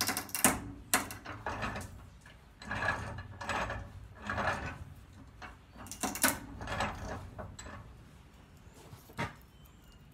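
A bench vise being cranked in spells, its screw and handle clicking and creaking, with a few sharp cracks as a butternut's hard shell splits between the jaws.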